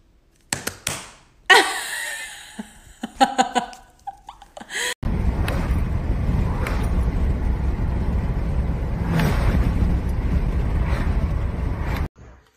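A woman's voice for the first few seconds, then a steady, dense rush of wind and road noise inside a moving car with a window open, which cuts off abruptly near the end.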